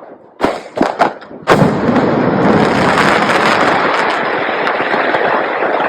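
Firecrackers going off: a few sharp bangs in quick succession, then from about a second and a half in a loud, continuous dense crackle.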